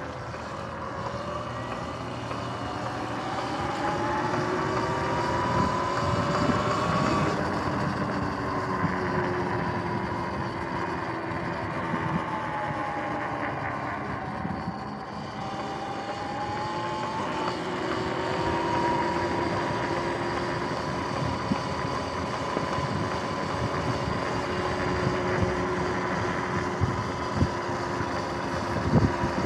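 Sur-Ron electric dirt bike's motor and drivetrain whining under way, with tyre and wind noise. The whine rises in pitch over the first several seconds as the bike speeds up, drops away in the middle, climbs again and then holds steady.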